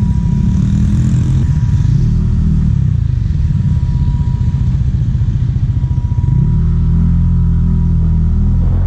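Motor scooter engine and its aftermarket exhaust pipe, heard from the rider's seat while under way. The engine note wanders as the bike pulls off and picks up speed, then holds a steadier pitch from about six and a half seconds in.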